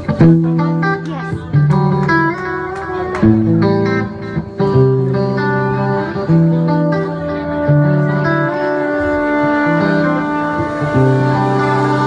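Live band launching into a song: electric guitar, bass and horns playing together.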